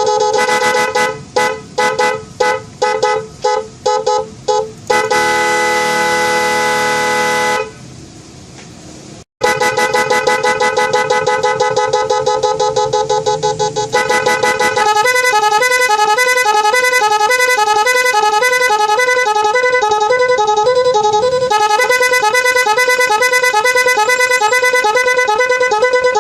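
Multi-tone electric snail-type vehicle horn (klakson keong) cycling through its sound patterns: a string of about eight short honks, then a held honk. After a quieter pause near the middle comes a fast pulsing tone that turns into a rapid warbling pattern of alternating pitches.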